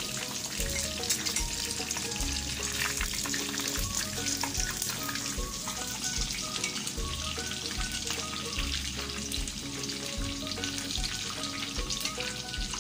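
Coated chicken pieces deep-frying in hot oil: a steady crackling sizzle, with background music playing under it.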